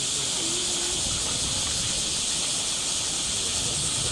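Steady high-pitched hiss of a summer cicada chorus, even and unbroken.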